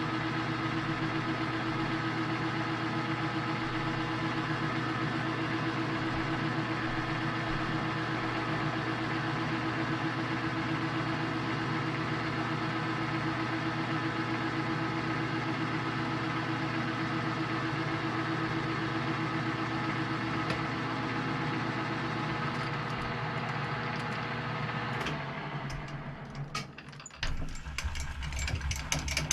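Metal lathe running steadily under power feed while a scissor-style knurling tool's wheels roll a knurl into a steel bar, a constant machine hum with several steady tones. About 25 seconds in the running drops away and irregular clicks and rattles follow.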